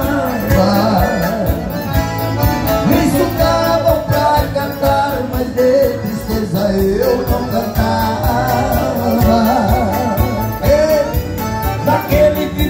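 Live song in Portuguese: male voices singing into microphones over the backing of a Roland VA-76 arranger keyboard, heard through PA speakers.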